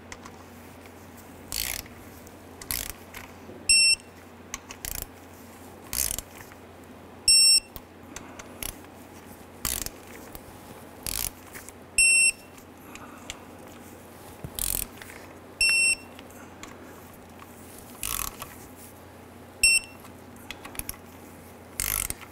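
Digital torque wrench beeping as each differential cover bolt reaches its set torque of 32 ft-lb: five short high beeps a few seconds apart, one held a little longer near the middle. Short clicks from the wrench's ratchet head fall between the beeps.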